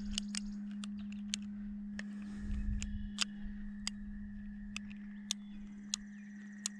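A string of sharp, irregular metallic clicks from a Cimarron Pistoleer single-action .45 Colt revolver's cylinder being turned by hand, chamber by chamber, to find the misfired cartridge with its light primer strike. A steady low hum runs underneath.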